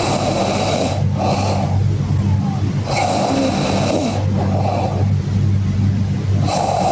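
Snoring in a regular cycle: a long snore of about a second, then a short one, repeating about every three and a half seconds, three times. A steady low hum runs underneath.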